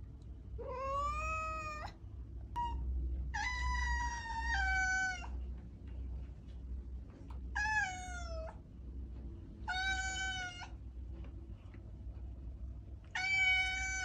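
Domestic cat meowing: five drawn-out meows, each about a second long and a couple of seconds apart, some falling in pitch at the end.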